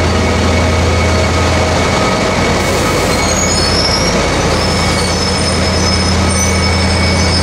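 SNCF CC 72100 diesel locomotive's engine running with a loud, steady deep drone as it hauls its coaches along the platform. Faint high-pitched wheel squeal joins from about three seconds in.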